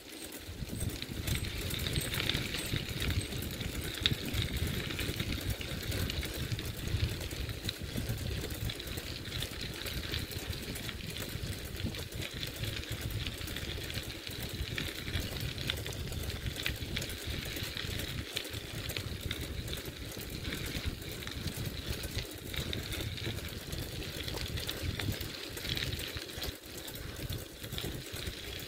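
Bicycle rolling along a gravel trail: a steady crunch and rattle of tyres on loose gravel, with wind rumbling on the microphone.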